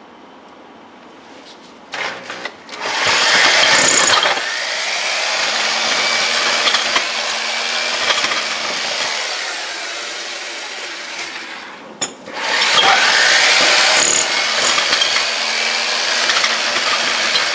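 Power drill with a 1-inch masonry bit boring through a concrete block and brick wall. It starts after a couple of quiet seconds with a few short bursts, runs steadily, stops briefly about twelve seconds in, then runs again.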